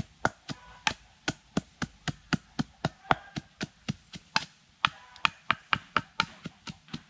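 Wooden pestle pounding in a clay mortar, a steady run of knocks at about three strokes a second.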